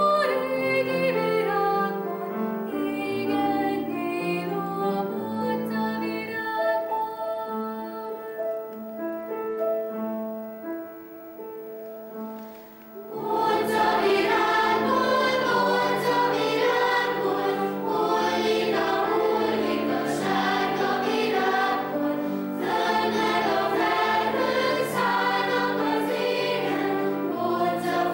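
Children's choir singing: long held notes grow softer to a hush about twelve seconds in, then the choir comes back in fuller and louder a second later.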